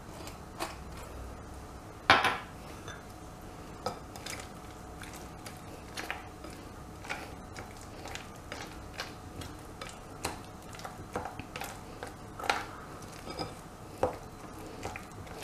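A spatula stirring thick butter and cream cheese frosting in a glass bowl, with irregular soft knocks and scrapes against the glass. The sharpest knock comes about two seconds in.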